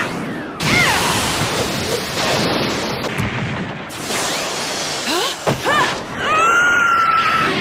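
Anime fight sound effects: a continuous loud rushing whoosh of fighters dashing through the trees, with several sweeping whistle-like swishes and a held whistling tone near the end.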